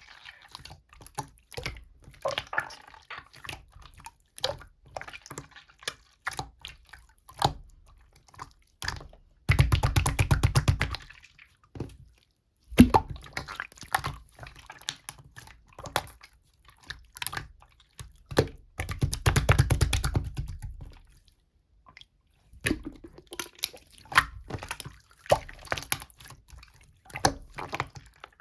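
Slime being squeezed, poked and stretched by hand, giving wet clicks and squishes, with two longer runs of rapid crackling as air pockets in the slime pop, and one sharp snap about halfway through.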